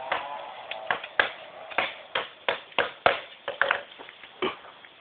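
An uneven series of sharp knocks, about two a second, that stops shortly before the end, with a brief pitched sound at the very start.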